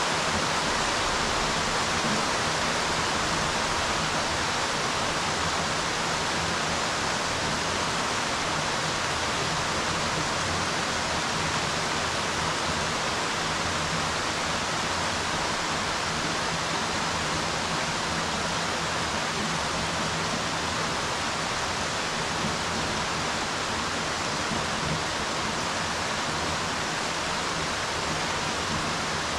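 Steady rain falling on a swimming pool: an even hiss of many drops hitting the water, unchanging in level.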